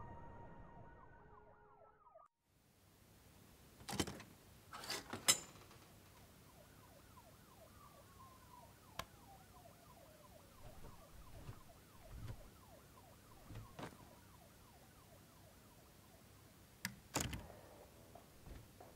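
Faint room tone broken by a few sharp clicks and knocks as two people come into a motel room and set a bag down: a cluster about four to five seconds in and another pair near the end. Before that, a faint siren-like gliding tone cuts off after about two seconds.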